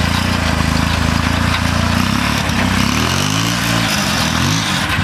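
The small engine of a 1969 Roof Palomino lawn-mower mini jeep, running on its first test drive. It holds a steady speed at first, then from about two seconds in its pitch rises and falls again and again as the engine speed changes.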